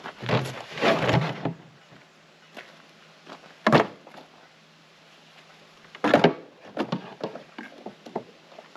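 Footsteps crunching on gravel, then knocks and clunks as a plastic gas can and gear are set down and handled: a cluster of crunches in the first second or so, a single sharp knock, and another burst of clunks followed by small clicks near the end.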